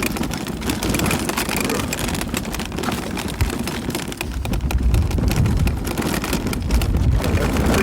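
Riding a bicycle: wind rumbles on the microphone over a steady stream of small rattles and clicks. The wind noise grows stronger about halfway through.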